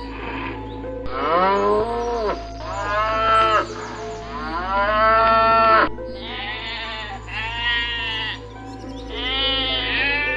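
Bleating livestock: about six drawn-out bleats in a row, each wavering up and down in pitch, over a steady low hum.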